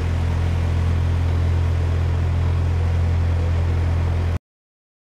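Steady low drone of an idling engine, cutting off suddenly about four and a half seconds in.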